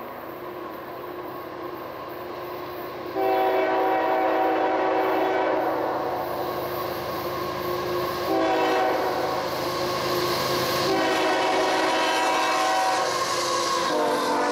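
Union Pacific diesel locomotive's air horn giving a horn salute, several chord blasts over the rumble of the passing freight train. A long blast starts about three seconds in, then a short one, another long one, and a fourth begins near the end.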